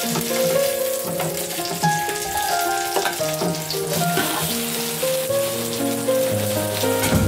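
Steady sizzling of a cake going into a frying pan with hot oil and sugar, over background music.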